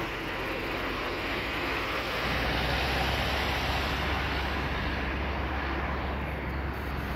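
Wind blowing across the microphone: a steady rushing noise, with a low rumble of buffeting that comes in about two seconds in and stays.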